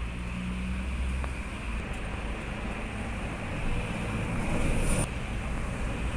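Steady background rumble and hiss, with a brief louder rustle about five seconds in, as the booklet's pages are turned.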